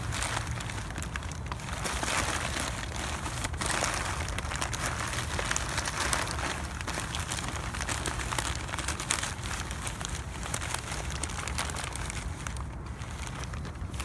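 Plastic and paper trash crinkling and rustling as it is handled, with many small clicks and crackles.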